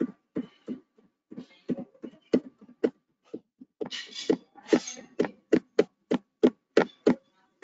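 Rapid clicks or taps on a computer, about three a second, made while paging quickly through a slide presentation; a couple of short hissy rustles come about four seconds in.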